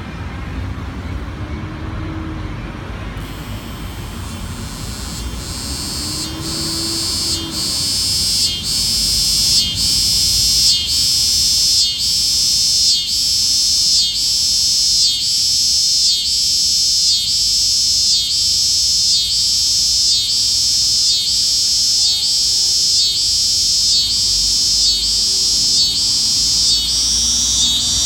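Cicada singing: a loud, high, shrill buzz starts a few seconds in and swells. It then keeps going with a steady pulse a little faster than once a second.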